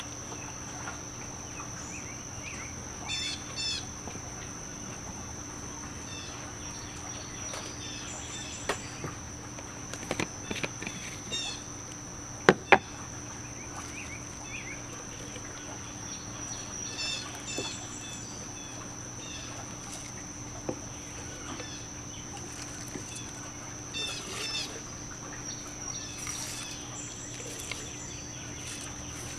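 Backyard ambience: birds chirping in short bursts every few seconds over a steady high-pitched whine, with a few sharp knocks, the loudest a quick double knock about halfway through.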